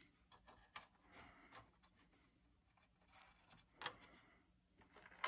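Faint handling noise: light clicks, taps and rubbing as the circuit boards and plastic parts of the opened projector are moved by hand, with a sharper click about four seconds in and another at the very end.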